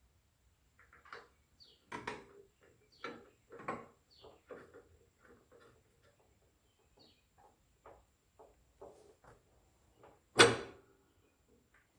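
Light metal clinks and taps as a mower blade, washer and bolt are handled and fitted onto the deck spindle, with one louder knock about ten and a half seconds in.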